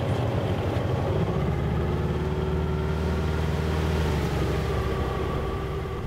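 Boat engine running with a steady low hum.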